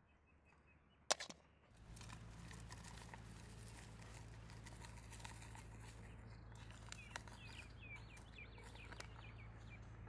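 A sharp click about a second in, then faint crackling rustles of a plastic bag as spice powder is tipped into a metal bowl. A small bird chirps a quick run of notes in the last few seconds.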